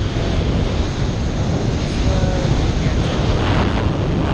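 Wind rushing over the camera microphone during a tandem skydive: a loud, steady roar with no letup.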